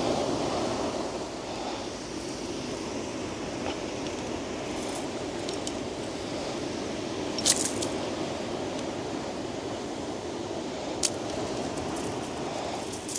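Handling noises of a bass being unhooked with a T-bar disgorger: small rustles and squishes, and two sharp metallic clicks, one about halfway through and another a few seconds later, over a steady background rush.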